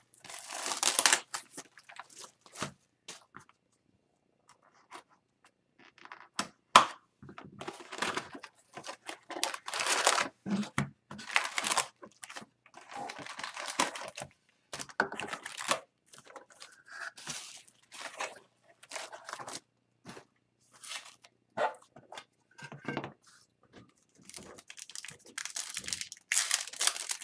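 Plastic shrink wrap torn off a cardboard hockey card box, then the box opened and foil card packs handled and torn open, in irregular crinkling bursts. A single sharp click stands out about seven seconds in.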